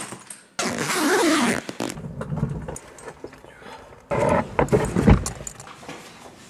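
Luggage being handled and loaded: a loud stretch of scraping handling noise early on, then a suitcase lifted into a car boot, landing with a heavy thump about five seconds in.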